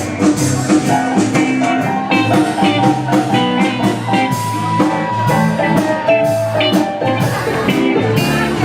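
Live band playing an instrumental passage with no vocals.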